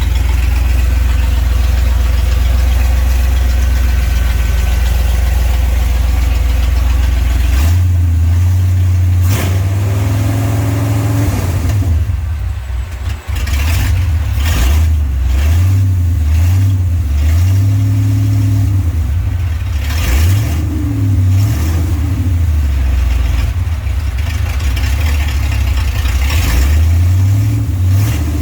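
Rebuilt Chevrolet 327 V8 in a 1965 Impala, idling steadily, then revved from about eight seconds in and held at varying higher revs with repeated blips of the throttle. The exhaust is not yet welded up.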